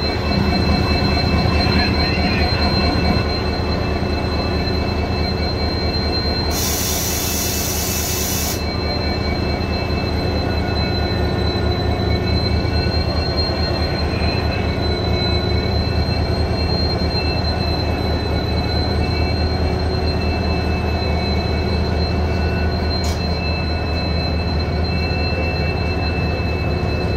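Indian Railways WDP4D diesel locomotive's 16-cylinder EMD 710 two-stroke engine running under load as it pulls away, a steady low drone with a high whine riding over it. About seven seconds in comes a hiss of air that lasts about two seconds.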